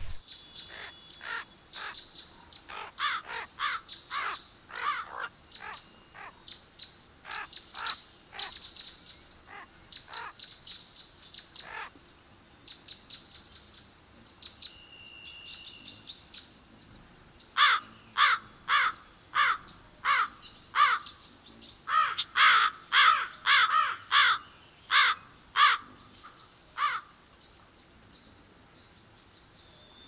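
Crows cawing: many short harsh calls in quick runs, then a louder bout of repeated caws from about the middle until shortly before the end.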